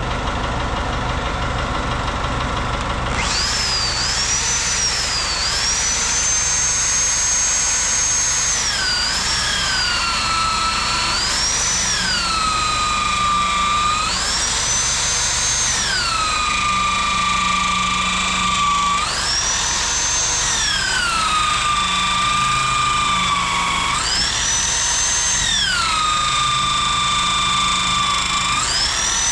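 Jones saw-tooth grinder sharpening the teeth of an inserted-tooth circular sawmill blade: its motor starts whining about three seconds in, and the pitch sags and recovers again and again, roughly every four seconds. A steady low hum runs underneath.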